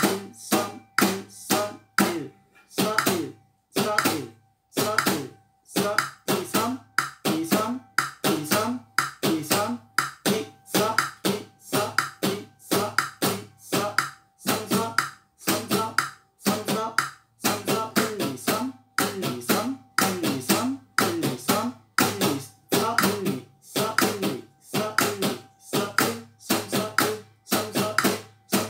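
Acoustic guitar strummed in sixteenth-note strumming patterns, some of the four strokes per beat left out. The strokes are short and crisp, each fading quickly, in a steady pulse of small groups.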